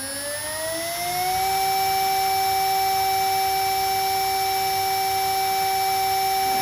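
CNC router spindle spinning up: a whine that rises in pitch for about a second and a half, then holds steady at full speed.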